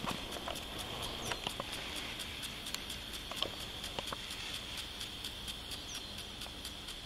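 Outdoor ambience of a steady, high insect drone with faint, rapid, evenly spaced chirps about four or five times a second. A sharp knock of camera handling right at the start, then a few light clicks.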